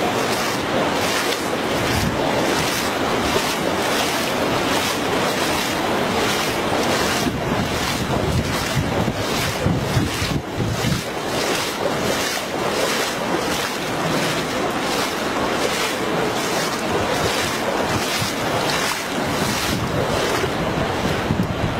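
Wind buffeting the camera microphone: a steady rushing noise with a heavy, shifting low rumble.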